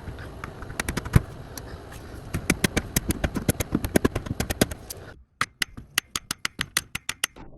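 A rapid, irregular series of sharp clicks, several a second. They break off just after five seconds and resume.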